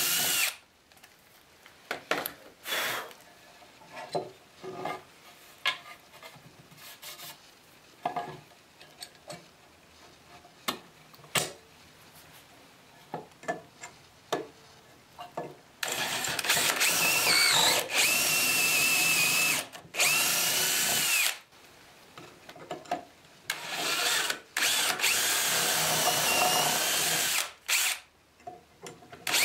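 Power drill boring dowel holes into wood through the steel bushing of an aluminium dowelling jig, in runs of a few seconds with a pitch that wavers under load, mostly in the second half. Before that, light clicks and knocks as the jig is handled and moved along the board.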